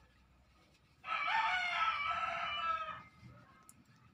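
A rooster crowing once: a single loud call about two seconds long, starting about a second in.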